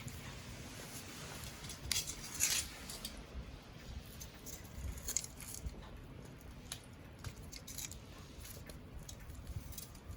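Wood campfire crackling: scattered sharp pops and snaps, the loudest cluster about two seconds in, over a low steady sound of burning.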